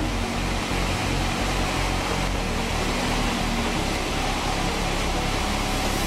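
Sawmill band-saw headrig running, a loud, steady mechanical noise with a low hum underneath.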